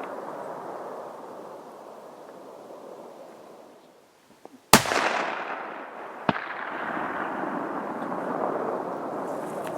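A single hunting-rifle shot about five seconds in, its report rolling away for a couple of seconds. A second, weaker sharp crack follows about a second and a half later. This is the last of four rounds fired at a bull moose about 350 meters off.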